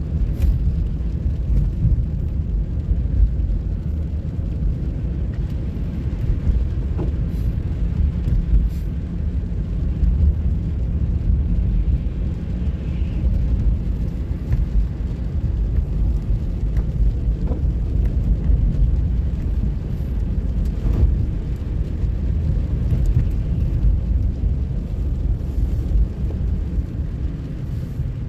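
Steady low rumble of a car driving on a wet, slushy road, heard from inside the cabin: tyre and road noise with the engine running underneath.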